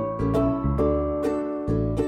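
Background music: a light, plucked-string melody over a steady bass line, notes picked at a regular pace.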